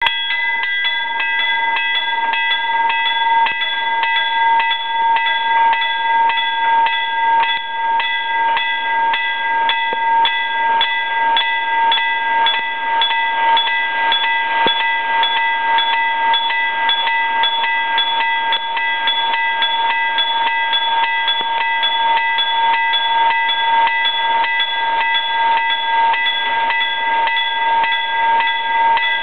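Railway level-crossing warning bell ringing steadily, about two strikes a second.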